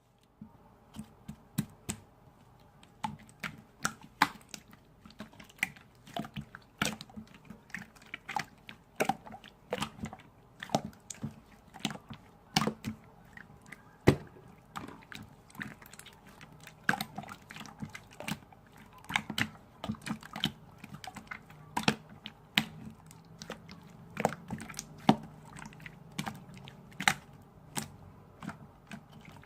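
Slime being squeezed and poked by hand, making irregular sharp clicky pops about one or two a second, with one louder pop about halfway through.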